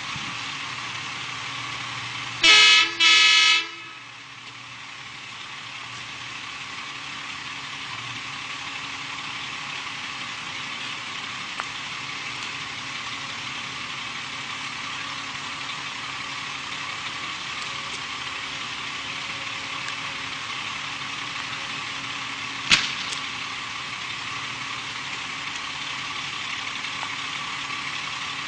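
Two short blasts of a vehicle horn about two and a half seconds in, over a steady hiss and faint low hum. A single sharp bang about twenty-three seconds in.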